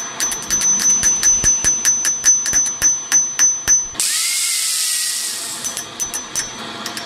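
Hand hammer striking a hot round steel bar set in an anvil's hardy hole, forging it to fit: rapid blows, about four a second, each with a high ringing from the anvil. About four seconds in, an angle grinder runs briefly and winds down. A few more ringing hammer blows follow.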